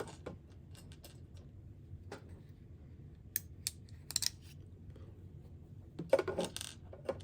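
Light, scattered clicks and clatter of small plastic electric-shaver parts being handled and fitted together, with a busier patch of clattering near the end.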